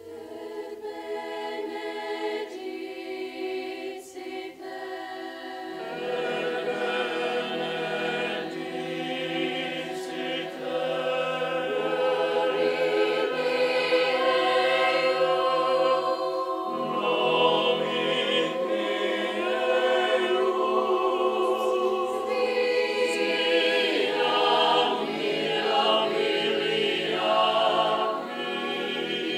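Mixed youth choir singing a cappella in sustained chords, coming in together right at the start. A lower part joins about six seconds in and the sound grows fuller and louder.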